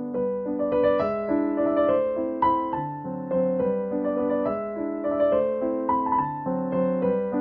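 Background music: a piano tune with held notes changing in steps.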